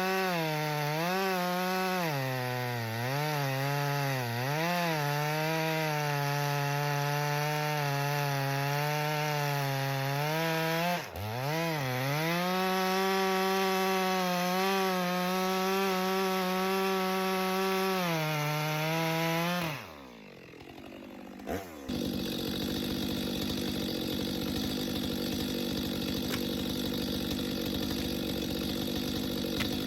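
Stihl MS 462 two-stroke chainsaw running at high throttle through a big log, its pitch wavering and dipping as the chain takes the load. About eleven seconds in it briefly bogs and picks back up, then near twenty seconds the engine winds down and stops. After a short pause and a click, a steady, rougher noise without a clear engine pitch takes over.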